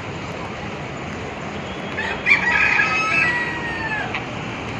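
A bird gives one long call of about two seconds, with a sharp start about halfway in and a drawn-out trailing end, over a steady background hiss.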